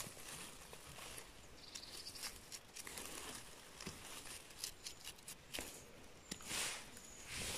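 Quiet scraping and cutting of a small knife trimming dirt off the stem bases of chanterelle mushrooms, with scattered faint clicks and soft rustling of moss and leaves as the mushrooms are handled.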